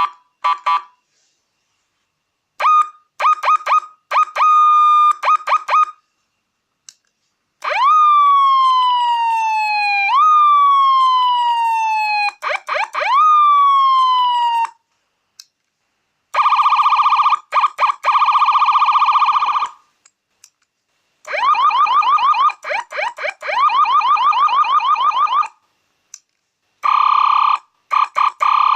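Electronic seven-tone motorcycle siren module sounding its different patterns one after another, with short pauses between them. It plays short chirps, then a falling whoop repeated four times, then a fast steady warble, then rapid repeated chirps, and the warble again near the end.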